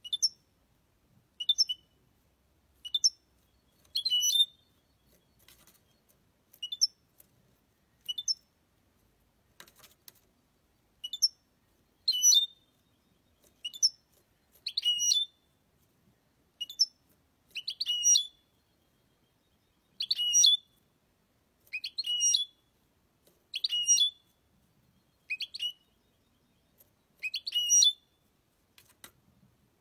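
European goldfinch calling, a series of short, sharp, high-pitched notes about one every second or so.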